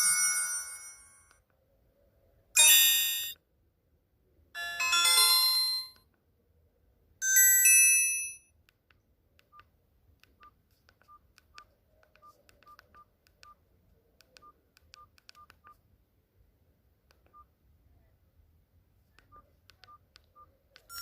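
Alcatel OT-1035A mobile phone playing its built-in tones through its small speaker. A ringtone fades out, then three short melodic chimes about two seconds apart, then a run of faint, short, single-pitch beeps at irregular spacing.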